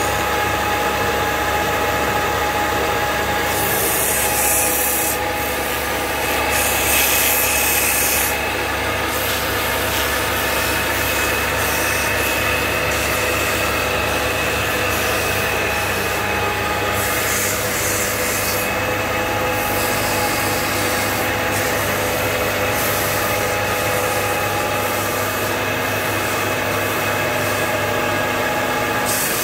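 Wood lathe running steadily while a hand-held metal turning tool scrapes and cuts the spinning wooden table leg, the cutting noise coming in bursts of a few seconds.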